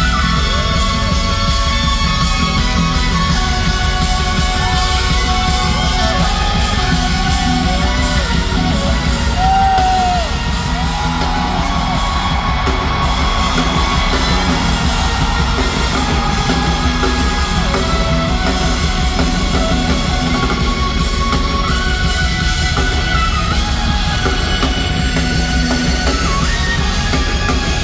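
A K-pop song performed live at a concert, loud over the sound system, with singing and the crowd yelling.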